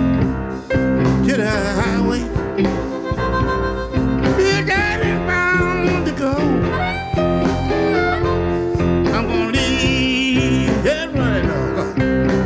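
A live electric blues band playing: harmonica over electric guitar, piano, bass and drums, with some singing.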